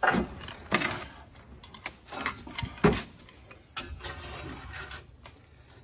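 Irregular knocks and clunks of heavy steel coil springs being worked by hand into their seat on a Budd RDC rail car's truck equaliser, the loudest about three seconds in.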